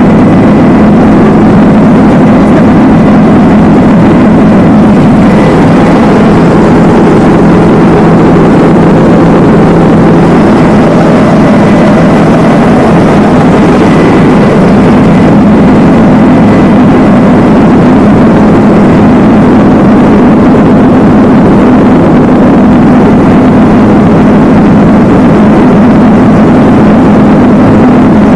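Helicopter engine and rotor noise heard from inside the cabin: a loud, steady drone with a faint high whine over it.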